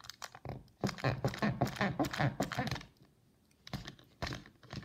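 A small plastic tool jabbing and scraping into a toy dinosaur's body, a quick run of clicks and scratches, then a pause and a few more.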